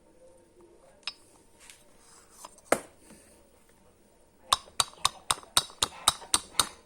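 Sharp metallic clinks of tools and metal parts being handled: one loud clink a little under three seconds in, then a quick run of about nine clinks, roughly four a second, near the end.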